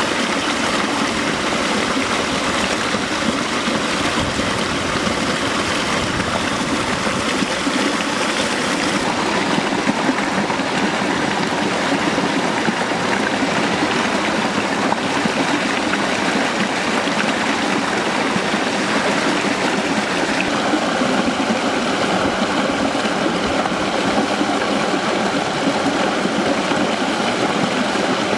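A small forest waterfall and stream rushing steadily, a continuous hiss of falling water. The hiss turns a little duller about nine seconds in.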